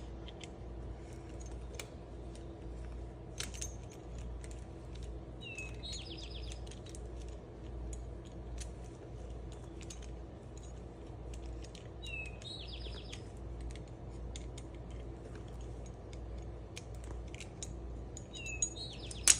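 A songbird repeats the same short phrase, a falling note then a fast buzzy trill, about every six seconds, over a steady low hum. Faint scattered small metal clicks come from hand tools on the chain.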